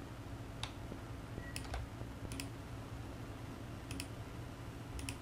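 Computer mouse clicking, about five or six faint separate clicks spread roughly a second apart, as knife-tool cuts are placed in 3D modelling software. A steady low hum sits underneath.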